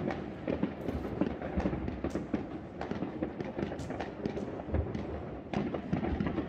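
New Year's fireworks and firecrackers going off all around: a dense, continuous crackle of bangs and pops, with a few louder reports standing out.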